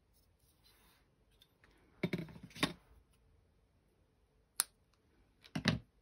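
Craft tools handled on a desk: a couple of knocks as the ruler is laid down about two seconds in, one sharp scissors snip through the ribbon, then knocks as the scissors are set down near the end.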